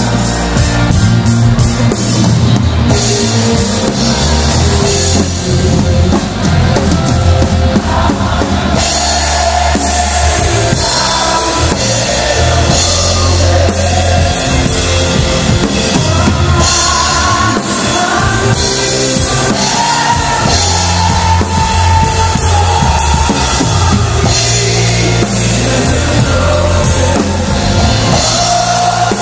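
Rock music with a full drum kit, heavy bass and a sung melody; the sound thins out and a melody line comes to the front about nine seconds in.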